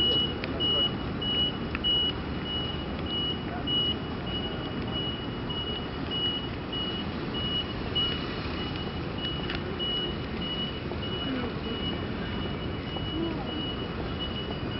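A high electronic beeper pips steadily, a little under twice a second, over the steady hiss of traffic and tyres on a wet street.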